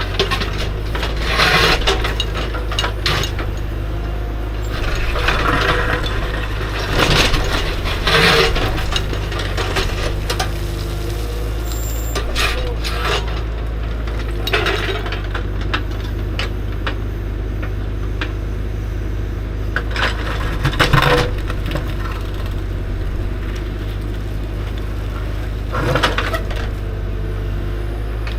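Compact excavator's diesel engine running steadily, with repeated clanks and scrapes of the steel bucket working against rock.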